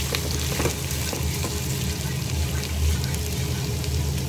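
Sliced onions, carrots and green chillies sizzling in oil in a stainless steel pot, with a spatula stirring and scraping them in the first second or so. A steady low hum runs underneath.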